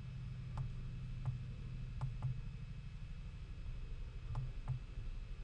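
Computer mouse clicking: about six short, sharp clicks at irregular intervals, two of them in a quick pair, over a steady low hum.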